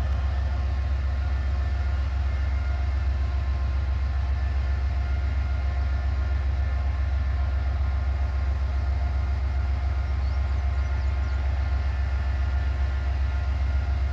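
Diesel-electric freight locomotive idling while stopped: a steady deep rumble with a constant whine above it.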